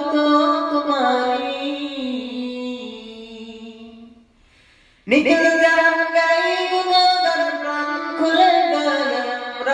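A voice singing a Bengali Islamic hamd (song in praise of God). A long held line fades away over the first four seconds, there is a brief pause, and a new line begins about five seconds in.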